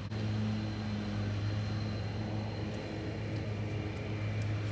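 A steady, low engine drone holding one pitch.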